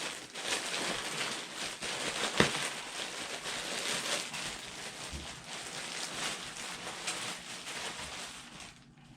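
Packaging rustling and crinkling as a shirt is pulled out and unwrapped by hand, with one sharp click about two and a half seconds in; the rustling stops shortly before the end.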